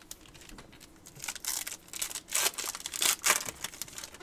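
Trading card pack wrapper being torn open and crumpled, crinkling in a run of sharp crackles that start about a second in and are loudest toward the middle and near the end.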